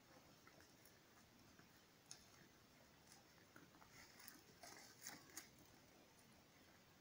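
Faint crisp clicks and rustles of sheep tearing and chewing leaves off cut branches, with a cluster of them about five seconds in.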